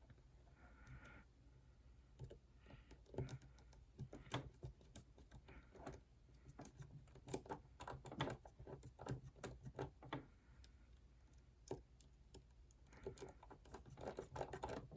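Faint, irregular clicks and taps of small tools and parts being handled while an iPhone is put back together and its tiny screws are driven in.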